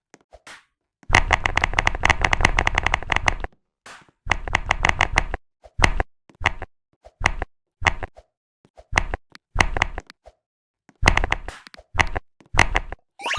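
Computer keyboard being typed on: rapid runs of clicking keystrokes in bursts of one to two seconds, separated by short pauses and a few single key presses.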